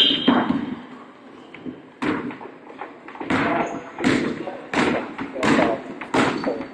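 Basketball being dribbled on a wooden gym floor: a regular run of bounces, roughly one every 0.7 seconds from about two seconds in, with a brief high squeak right at the start and players' voices in the hall.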